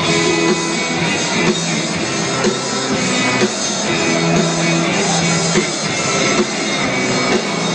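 Rock music with guitar playing over a stadium's loudspeakers.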